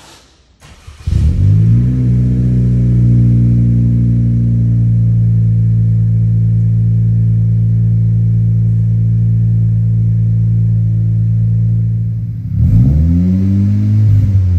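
A 2022+ Honda Civic Si's 1.5-litre turbocharged four-cylinder, breathing through a PRL Motorsports N1 aftermarket exhaust, is cold-started. It catches about a second in, flares up briefly, then settles into a steady cold idle. Near the end it is revved twice, the pitch rising and falling with each blip.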